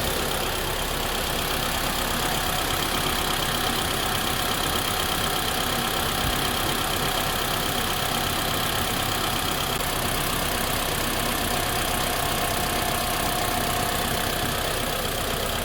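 A 2015 Mitsubishi Lancer's engine idling steadily.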